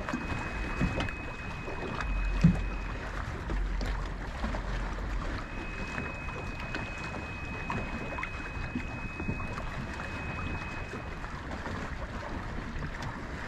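Wind buffeting the microphone and water against a small boat's hull on open water, with a thin steady high whine that stops about three seconds in and returns about two seconds later. A single sharp knock sounds about two and a half seconds in.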